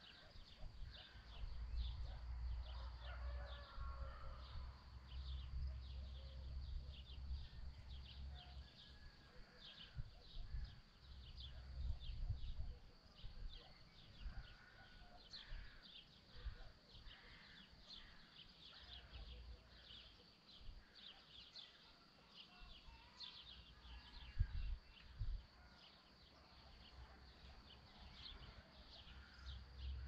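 Birds chirping, with quick high chirps throughout and a chicken clucking now and then, over low rumbles of wind on the microphone that come and go.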